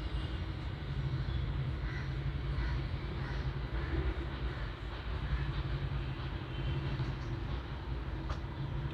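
A steady low electric hum with an even hiss, with a few faint ticks.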